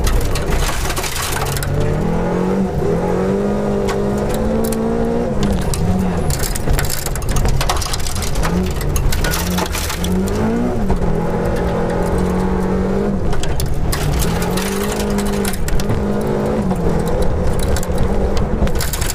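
Volvo 242 Group H rally car at full stage pace, heard from inside the cabin: the engine revs climb and drop sharply again and again through gear changes and lifts, with gravel clattering against the underbody.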